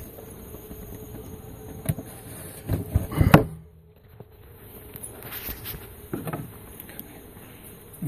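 Handling noise from a phone being moved about in gloved hands: rubbing and several knocks, loudest about three seconds in, then a moment where everything goes muffled. Behind it a honey bee swarm buzzes faintly.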